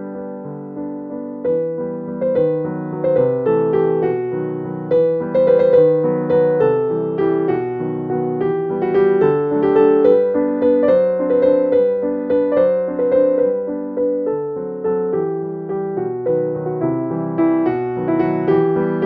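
Background piano music: a gentle melody of steadily played notes over soft chords.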